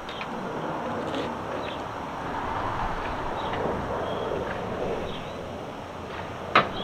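Steady outdoor background noise with a single sharp click or knock near the end.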